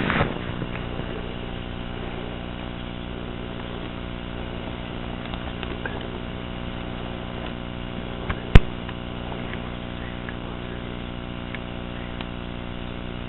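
Steady electrical hum made of many evenly spaced tones, with a single sharp click about eight and a half seconds in.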